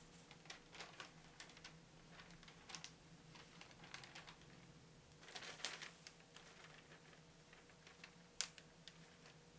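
Quiet, scattered rustles and light ticks of a paper sheet being handled as sifted matcha and flour powder is tipped off it into a glass bowl, with a longer rustle a little past halfway and one sharp tick near the end.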